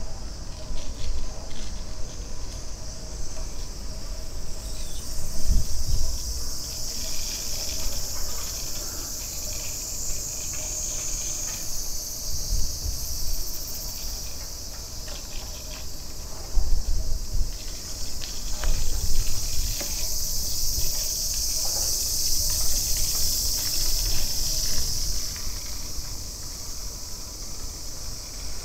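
A chorus of summer cicadas making a steady, shrill, high drone. It swells up about five seconds in, eases off in the middle and swells again later. Low rumbles and thumps come and go underneath.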